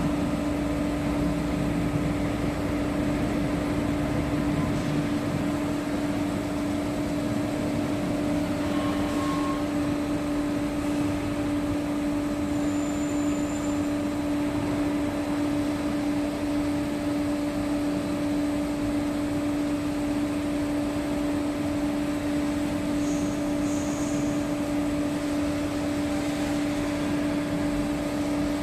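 Hydraulic power unit running with a steady hum and a constant low tone, supplying a hydraulic cylinder through its hoses.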